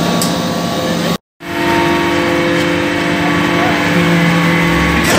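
Hydraulic briquetting press for copper chips running: a steady hum of its hydraulic pump and motor with several even tones. The sound cuts out completely for a moment a little over a second in, then carries on.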